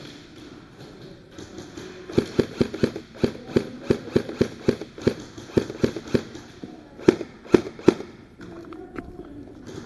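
Airsoft guns firing semi-auto in an indoor arena: a run of sharp cracks, about three a second, with three louder shots near the end.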